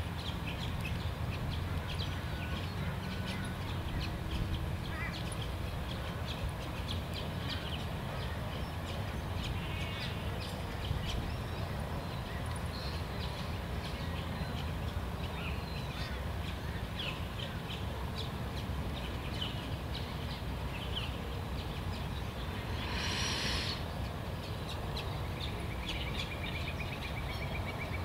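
Open-air field ambience: a steady low wind rumble on the microphone, with scattered bird chirps and one louder, harsh bird call near the end.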